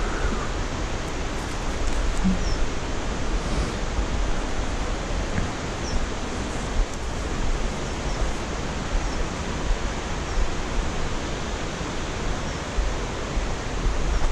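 Steady rushing noise with an unsteady low rumble underneath, and a few faint short high chirps.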